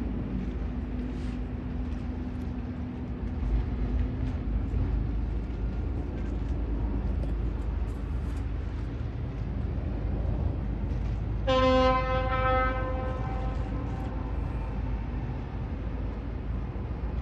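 Cruise ship's horn sounding one blast of a second or two, about two-thirds of the way in, over a steady low rumble.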